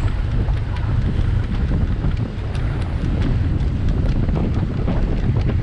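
Wind buffeting the microphone: a loud, steady low rumble, with faint scattered clicks over it.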